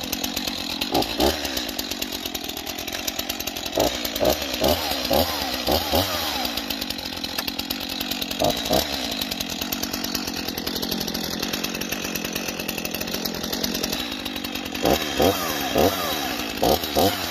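Brand-new STIHL MS 251 two-stroke chainsaw running just after its first start. It idles steadily between short throttle blips that rev it up and back down: a few about a second in, a cluster around four to six seconds, one near the middle, and another cluster near the end.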